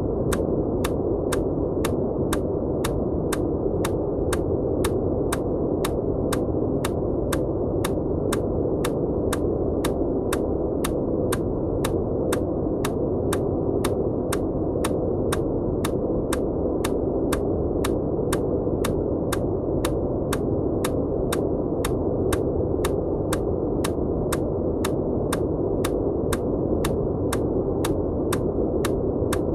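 Steady, muffled white noise with short clicks repeating evenly about twice a second: an EMDR bilateral-stimulation click track layered over the noise.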